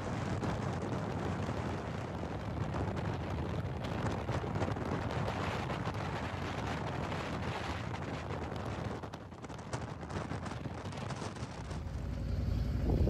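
Wind buffeting the microphone on a moving motorcycle at road speed, a loud rushing noise with gusty pulses. Near the end it gives way to a lower, steadier engine rumble at slow speed.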